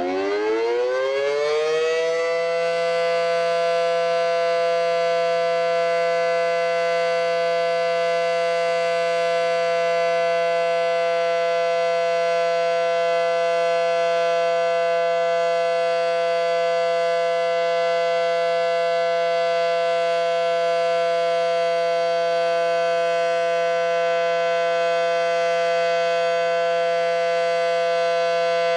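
Federal Signal SD-10 outdoor warning siren winding up over the first couple of seconds, then holding one steady, unbroken tone. It is being sounded as a tornado drill test.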